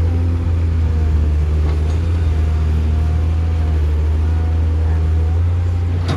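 Heavy diesel engine of construction machinery running steadily under load, a constant deep hum with a faint wavering whine above it.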